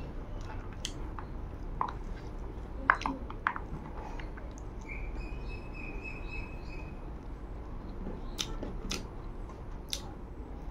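Close-miked chewing and sharp mouth clicks of a person eating rice by hand, with a faint thin steady tone for about two seconds in the middle.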